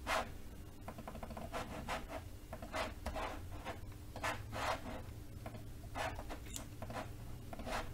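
Faint, scattered rubbing and scraping strokes of a computer mouse sliding and clicking on a desk, a few every second or two, over a low steady hum.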